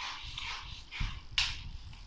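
Chinese yo-yo (diabolo) whirring on its string in repeated swooshes as it is pumped with the hand sticks, with a sharp click about one and a half seconds in.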